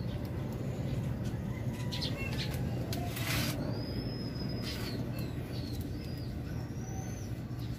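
Wire being wrapped around thin bonsai branches by hand, with a few short rustles, over a steady low hum. Small birds chirp several times in the background.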